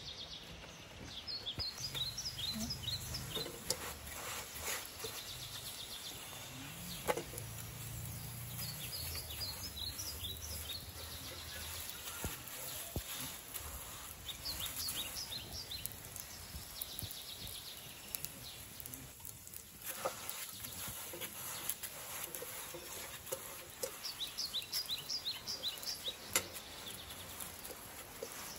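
Birds chirping in repeated quick runs of high notes that come and go several times over a steady outdoor background.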